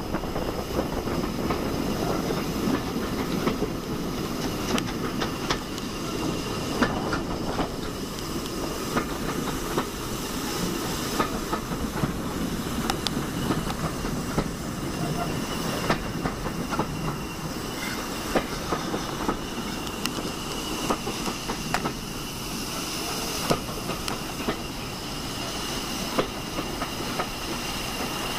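Diesel-hauled passenger train heard from an open carriage window: a steady running rumble from the Class 40's English Electric 16SVT engine working hard ahead, wheels clicking over rail joints, and a hiss of steam from the active carriage steam heating.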